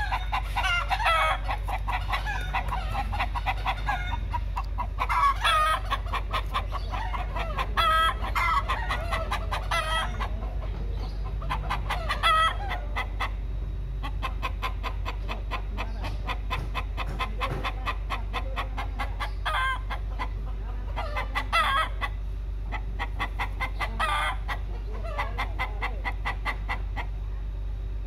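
Domestic chickens, a rooster and a hen, calling and clucking in bouts a few seconds apart: the rooster's courting calls. A steady low hum runs underneath.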